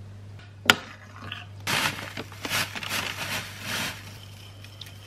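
A sharp click, then oat flakes with dried fruit poured from a bag into a bowl, a dry rustling patter with the bag crinkling that lasts about two seconds.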